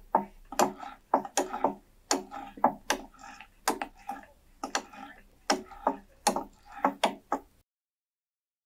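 A hafted blade tool chopping into a wooden tree trunk, about two to three blows a second, each a sharp knock with a brief woody ring. The chopping cuts off abruptly near the end.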